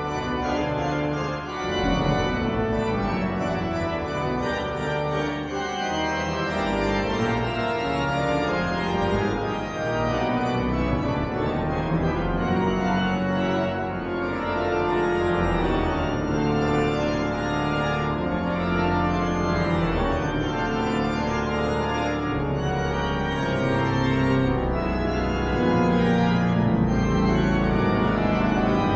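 Durham Cathedral's pipe organ playing, with dense held chords over a deep pedal bass that changes chord every second or so.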